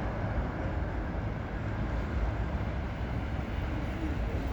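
Steady outdoor background noise with a low, uneven rumble and no distinct events.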